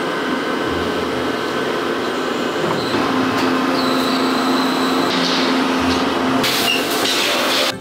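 Hydraulic compression-moulding press running as it closes on a silicone mould: a loud, steady machine hum, with a held tone from about three seconds in and a hiss near the end, cutting off suddenly.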